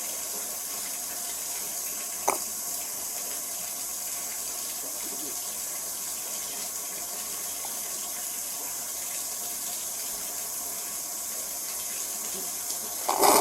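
Steady hiss of running water, with a short sharp click about two seconds in and a louder knock near the end.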